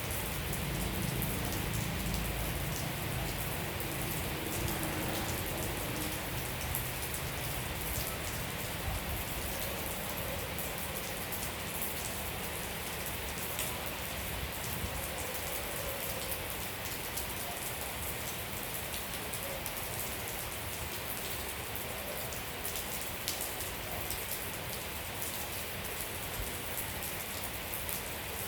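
Steady rainfall, a continuous hiss with many individual drops tapping close by.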